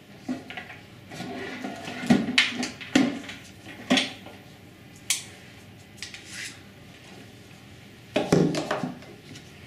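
Handling noise from a black plastic pod coffee machine being taken apart by gloved hands: a series of sharp knocks and clatters of hard plastic, with a louder burst of handling near the end.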